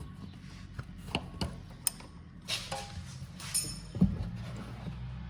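Scattered metallic clinks and knocks of hand work on the car's rear suspension as the air spring is taken out, with a short ringing clink and then a heavier thump about four seconds in.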